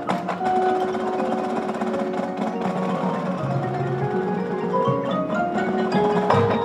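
High school marching band playing, with mallet percussion from the front ensemble. A rising run of notes builds to a loud accented hit near the end.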